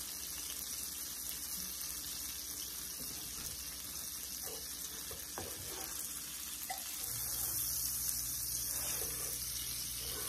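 Butter sizzling in a nonstick frying pan under a grilled cheese sandwich, a steady hiss that grows louder about seven seconds in. A few light taps and scrapes of a slotted spatula on the pan in the middle.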